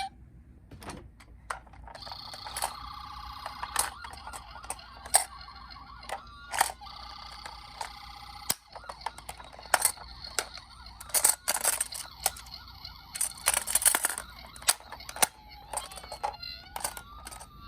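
Scattered plastic clicks and knocks from toy ambulance minicars being handled, with faint electronic toy-siren tones at times. A rising-and-falling siren wail comes in near the end.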